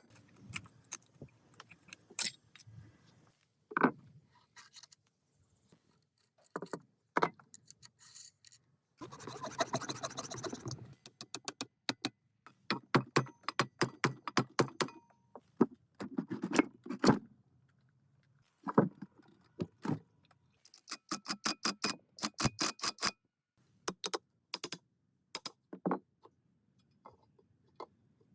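Small metal parts and hand tools clinking, tapping and scraping against each other in irregular runs of sharp clicks, with a two-second rushing, scrubbing noise about nine seconds in.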